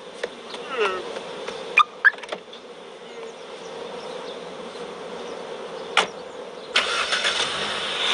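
Car door slams shut about six seconds in. Less than a second later a car engine starts and keeps running, loudly. Before that come a few sharp knocks over a steady background hum.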